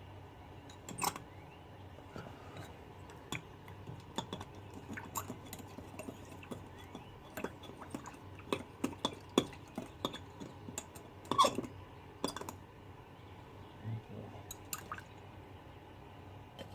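Small hard clicks and clinks at irregular intervals as metal tools and silver pieces are handled on a soldering bench, with a sharper run of clinks about two-thirds of the way through.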